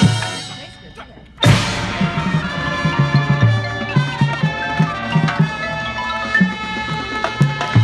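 Marching band playing: a chord dies away, then about a second and a half in the full band comes back in with a sudden loud hit. Sustained brass chords follow over a regular low drum beat.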